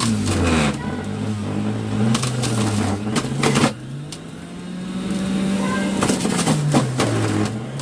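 Electric juicer juicing carrots: the motor hums, its pitch sagging under load and rising to a higher, steadier note around the middle as it frees up, then dropping again as more carrot is fed in. Sharp crunches come as carrot pieces are pushed through, the loudest about three and a half seconds in.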